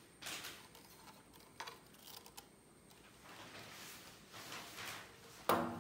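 Handling noise from a plastic three-stage knife sharpener turned over in the hands: soft rustles and a few light clicks. A single sharp knock near the end is the loudest sound.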